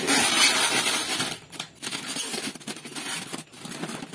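Styrofoam packing blocks rubbing and scraping against the cardboard of a shipping box as a heavy boxed sewing machine is pulled out. There is a dense rush of rubbing for the first second or so, then irregular scrapes and crackles.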